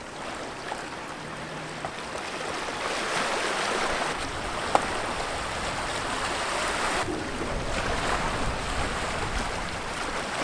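Ocean surf washing onto the shore, swelling about two seconds in, with wind rumbling on the microphone through the middle and a single sharp click about halfway through.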